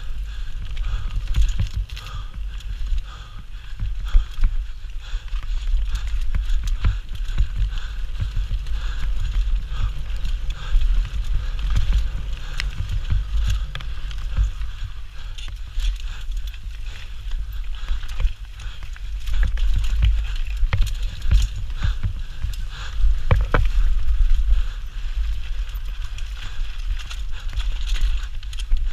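Mountain bike descending rough forest singletrack at speed: a constant low wind rumble on the microphone, with the bike rattling and clattering over roots and stones in many sharp knocks and tyres scrubbing on the dirt.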